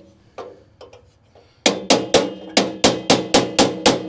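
Hammer striking a pin punch to drive a drilled-out rivet from an RV step frame: a few light taps, then from about a second and a half in a fast, even run of ringing blows, about four a second.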